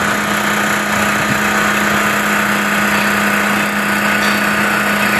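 Construction machinery engine running steadily: a constant low hum under an even hiss, without change.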